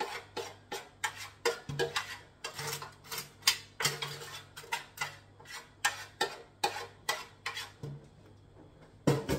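A spoon scraping and knocking against a foil-lined bowl, a quick run of taps about three a second, as chopped garlic and onion are scraped out. The taps go quieter near the end, then there is one louder knock.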